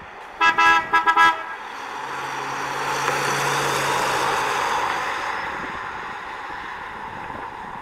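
1955 Buick Roadmaster sounding its horn in about four short toots, then driving past. The rush of its tyres and the low hum of its 322 V8 rise, peak as it passes and fade away.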